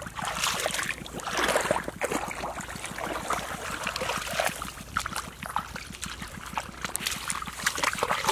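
Shallow muddy water splashing and sloshing around bare feet and hands as a person wades and feels through the mud, in irregular bursts.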